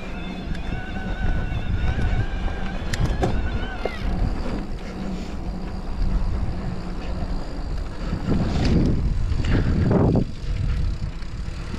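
Enduro mountain bike riding over a dirt trail: a steady rumble of tyres and wind on the microphone, a few sharp clicks about three seconds in, and two loud rushing surges near the end.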